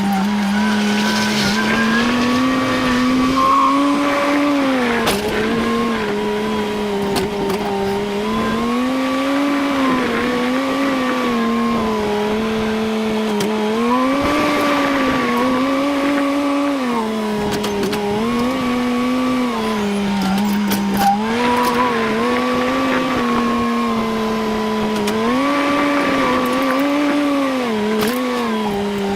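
A farm vehicle's engine running under load, its pitch rising and falling smoothly every few seconds as the throttle opens and eases off.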